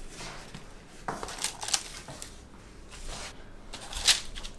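Light paper rustling and soft taps as baked almond cookies are lifted off parchment paper and set down on a paper doily. The loudest tap comes about four seconds in.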